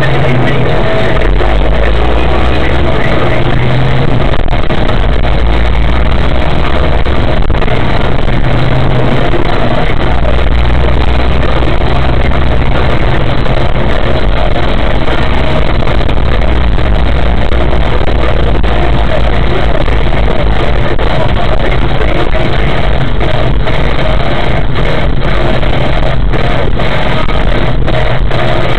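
Loud music with a heavy low bass, mixed with car engine and road noise.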